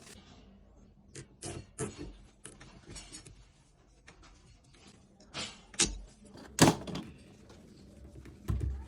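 Irregular knocks, clicks and rustles of objects being handled, the sharpest about two-thirds of the way in and a duller thump near the end.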